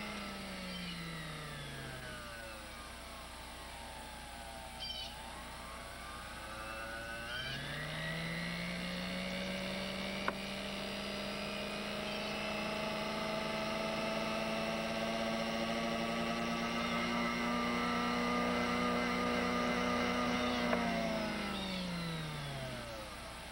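Small watchmaker's lathe motor running at high speed for polishing a clock pivot with peg wood and diamantine paste: it slows down at first, speeds up again about eight seconds in and runs steady, then winds down near the end. A single sharp click about ten seconds in.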